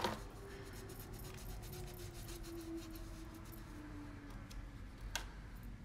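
Faint rubbing and light scratching as eyeshadow swatches are wiped off the skin of an arm, with one sharp click about five seconds in.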